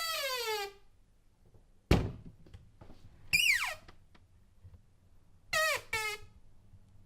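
Creaking door hinges squeaking in several separate squeals, each sliding down in pitch. A squeak tails off at the start, a sharp knock of the door comes about two seconds in, then a quick high squeak dropping steeply, and two short squeaks close together near the end.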